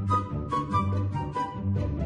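Background music with a steady beat, a bass line and a melody.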